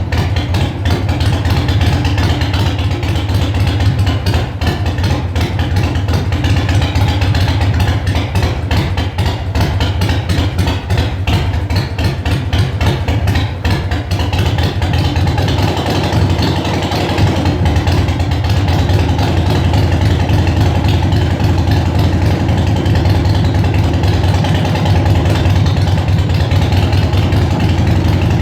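Freshly rebuilt Harley-Davidson Sportster V-twin engine running on its first start after the rebuild. For the first half its firing pulses come through as a distinct, uneven beat; it then settles into a steadier idle.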